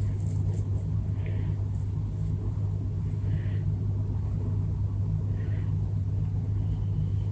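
A steady low hum, with faint soft rustles about every two seconds.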